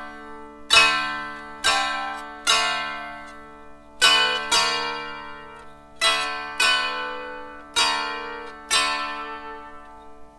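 Dulcimer strummed slowly in an improvised tune: about nine chords, each left to ring and fade, over steady drone strings.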